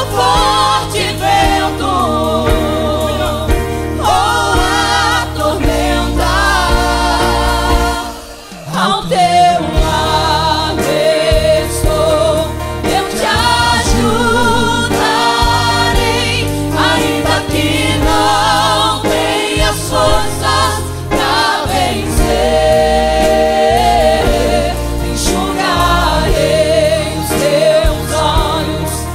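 Gospel song sung in harmony by a small vocal group of men and women, with live band accompaniment of double bass, acoustic guitar and keyboard. The music dips briefly about eight seconds in.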